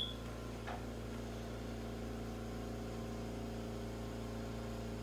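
Steady low hum of a motor or fan running, unchanging in pitch and level.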